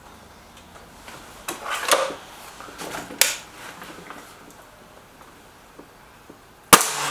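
Stoeger RX20 break-barrel air rifle being readied, with a few mechanical clunks and clicks, then, near the end, a single sharp, loud shot.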